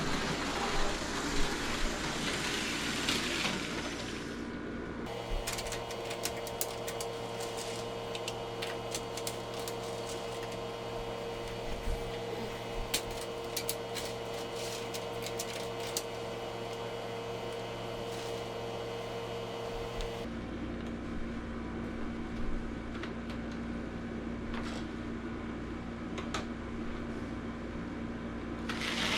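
Tyco Power Torque HO locomotive running: a steady motor-and-gear hum, with light clicking in the middle stretch. The hum's pitch changes abruptly about five seconds in and again near twenty seconds.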